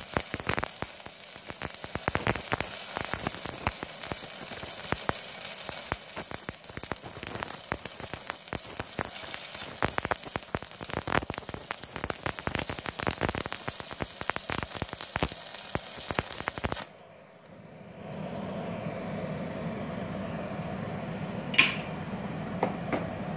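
Stick-welding arc from a Multipro VRD MMA 400 A-MZ inverter welder running a 4 mm electrode at about 157 amps, crackling and sizzling with dense sharp pops. The arc cuts off suddenly about 17 seconds in, leaving a steady low hum with a single click near the end.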